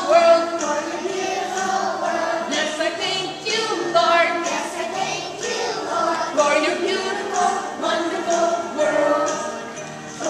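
Group of young children singing a song together as a choir.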